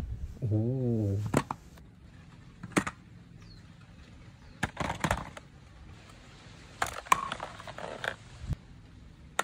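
Hard plastic toy guns being set down and arranged on a mat: scattered knocks and clatters at irregular intervals. Near the start there is a short wavering voice sound, like a drawn-out "wow".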